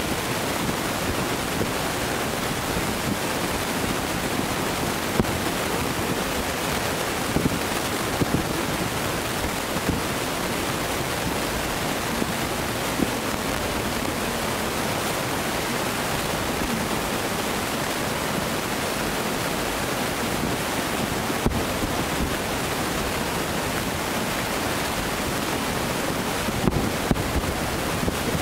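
Steady rushing noise of surf and wind, with a handful of sharp pops scattered through it, several close together near the end: the reports of distant fireworks shells bursting over the sea.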